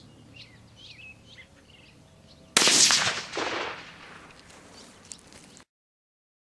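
Birds chirping, then a single .223 rifle shot about two and a half seconds in, its report rolling away over a second or so. The sound cuts off abruptly near the end.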